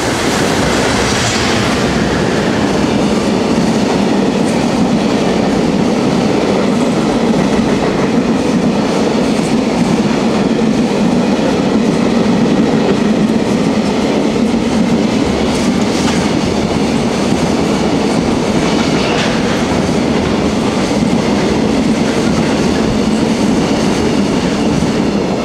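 Freight train passing at speed: a JR Freight EF210 electric locomotive goes by right at the start, then a long string of container wagons rolls past steadily, wheels running over the rails.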